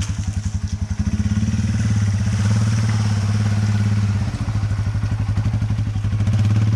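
Yamaha TW200's single-cylinder four-stroke engine running with an even pulsing beat, growing louder about a second in and again near the end.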